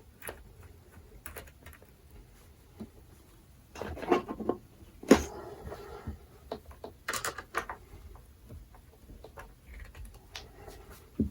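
Scattered clicks, knocks and rustles of hands working on wiring and components inside a toolbox, with louder clusters of knocks about four to five seconds in and again about seven seconds in.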